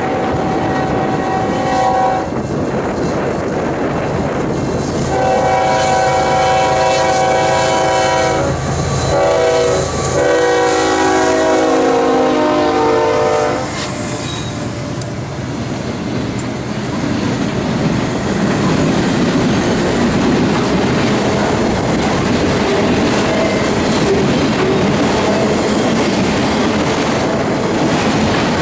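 Freight locomotive air horn sounding a short blast, then a long blast whose chord drops in pitch as the lead units pass. It is followed by the steady rumble and clickety-clack of autorack cars rolling by.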